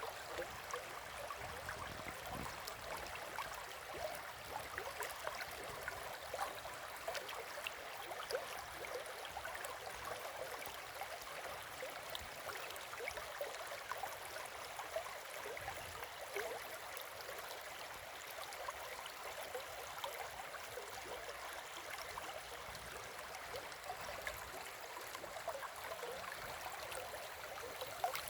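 River water flowing and babbling over stones, a steady rush with constant small splashes and gurgles.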